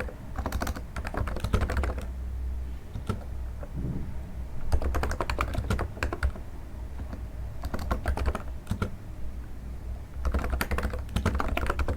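Typing on a NiZ electro-capacitive keyboard: bursts of quick, soft keystrokes with short pauses between them, a sound likened to stepping on snow. A low steady hum runs underneath.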